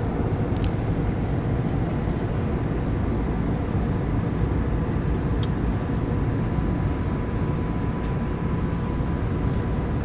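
Airliner cabin noise in flight: a steady, dense low rumble of engines and airflow, with a thin steady tone above it.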